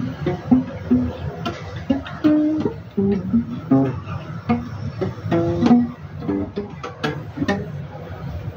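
Guitar music: a melody of short plucked notes, several a second.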